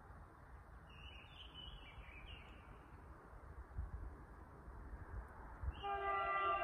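Horn of the SA103 diesel railbus sounding, one held chord of several steady tones starting near the end. Before it, a bird chirps briefly about a second in, over low wind rumble on the microphone.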